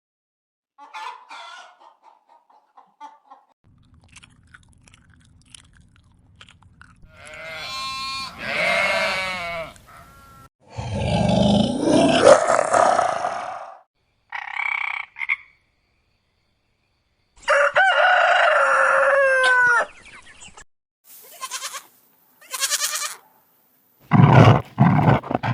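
A string of separate farm animal calls with short silences between them, among them a rooster crowing.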